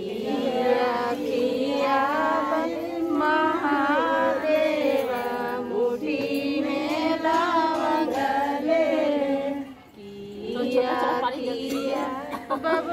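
Women singing together in long, drawn-out melodic lines, with a short pause about ten seconds in.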